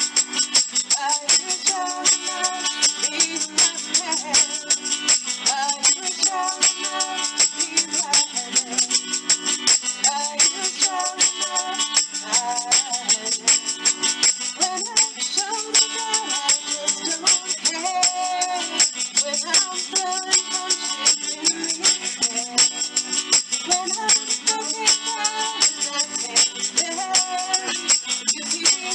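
Live acoustic folk-pop: a woman singing lead over a strummed acoustic guitar, with a hand-shaken plastic shaker keeping a steady, fast rhythm throughout.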